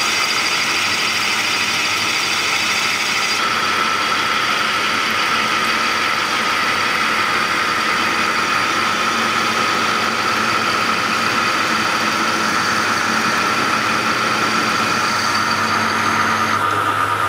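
Metalworking lathe running, its tool cutting a recess into the face of a model locomotive driving wheel. The steady machining noise has a steady high note that comes in about three seconds in.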